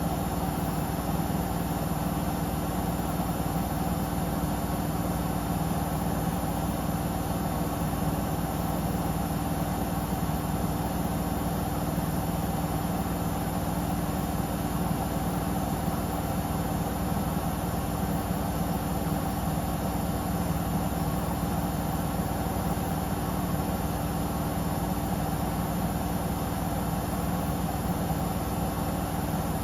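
Samsung Eco Bubble digital inverter washing machine running steadily on a test spin: an even machine hum with a few held tones that do not change in pitch or level.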